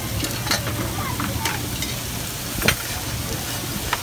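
Meat sizzling on a flat-top steel griddle, with metal utensils clicking and scraping against the plate several times; the sharpest clank comes a little past halfway.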